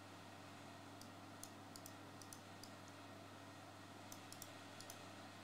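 Faint, sharp clicks of a computer mouse, about a dozen in irregular clusters, over a steady low electrical hum.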